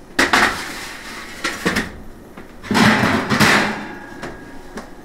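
Metal kitchen clatter: a baking sheet of ceramic ramekins set down on an electric stovetop and the oven rack and door being pushed shut. A sharp knock just after the start, another at about a second and a half, and a longer clatter around three seconds in.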